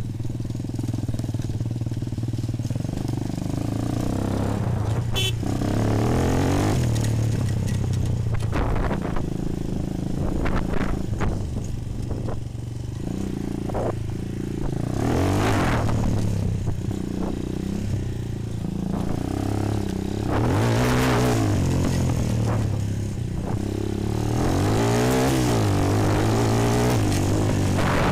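Bashan 250 quad's single-cylinder four-stroke engine running under way on dirt, revving up and easing off about four times.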